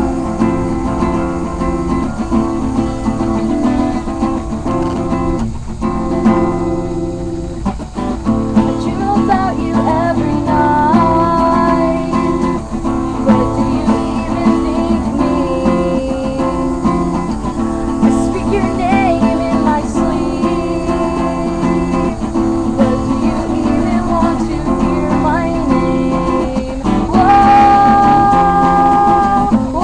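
Acoustic guitar strummed steadily while a woman sings over it, her voice coming in about a third of the way through.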